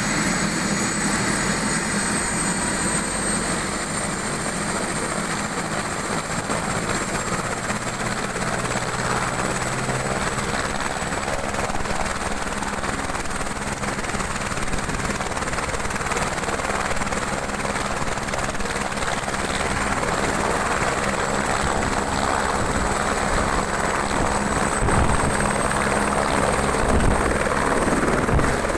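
Airbus H125 (AS350 B3 Écureuil) helicopter running for takeoff: steady rotor noise with a high turbine whine over it, a little louder near the end.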